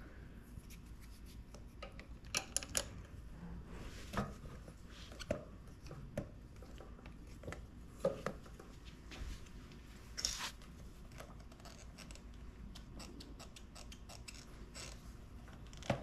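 Scattered light clicks and scrapes of hand tools and small metal parts being worked at a small ATV carburetor and its throttle cable, with a short scrape about ten seconds in.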